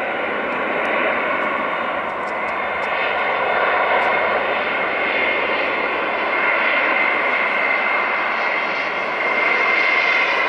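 Airliner's engines running loud and steady, building gradually louder, with a thin high whine that grows stronger in the second half.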